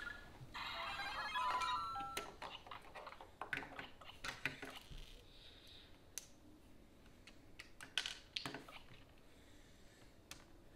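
Electronic chirps and jingles from a LEGO Super Mario interactive figure's small speaker in the first couple of seconds, then scattered clicks and taps of plastic LEGO pieces being handled, with one sharper click near the middle.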